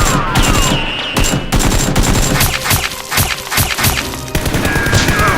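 Gunfire sound effects: a dense volley of rapid shots, thinning briefly about three seconds in before picking up again.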